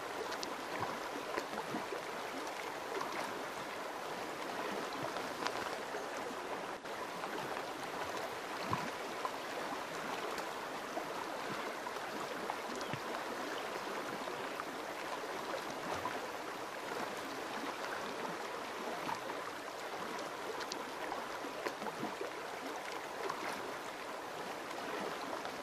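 Flowing river water making a steady, even sound, with faint small splashes and gurgles scattered through it.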